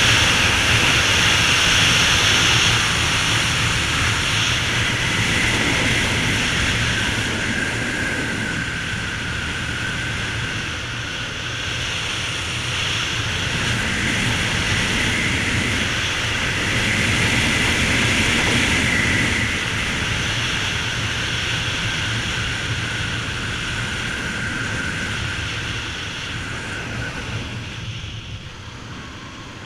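Honda Tornado 250 single-cylinder four-stroke motorcycle engine running steadily under way, mixed with a broad rush of air. It grows quieter near the end.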